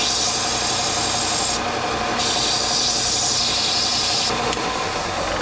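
Belt sander running steadily while a thin metal rod is pressed to its abrasive belt, giving a loud grinding hiss twice, each about two seconds long, with a short break between.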